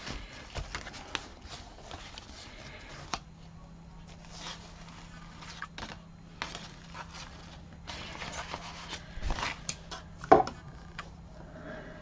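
Hands handling cardstock and satin ribbon on a craft mat: soft paper rustling and sliding, with scattered light taps and clicks against the mat.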